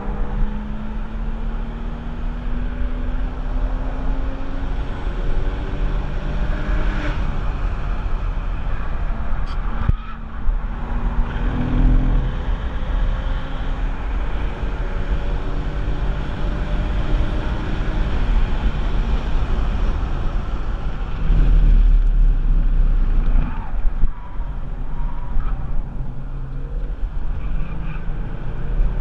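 Porsche 996 Carrera 4's 3.6-litre M96 flat-six under hard acceleration on track, its pitch climbing in long pulls and dropping at shifts and lifts several times, over a heavy low rumble of wind and road noise.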